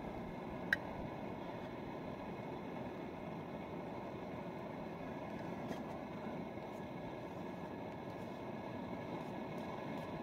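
Small portable gas camping stove burning with a steady hiss under a steaming pot. A sharp metal clink from the pot under a second in, and a fainter tap near the middle.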